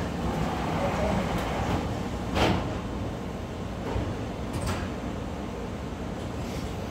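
Korail Gyeongui–Jungang Line electric commuter train (set 331x06) pulling away from the station out of shot, a steady rumble of running gear with a few sharp knocks about two and a half and four and a half seconds in.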